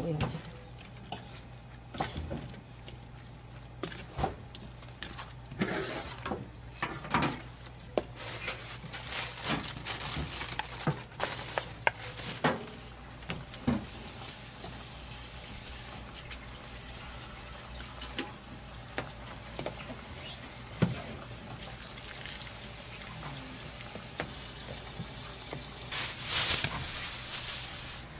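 Chopsticks clicking and scraping against a metal wok while stir-frying sliced fish cake, over a steady low hum. The clicks thin out in the second half as a pot of kimchi stew cooks with liquid sounds, and a louder rush of liquid comes near the end.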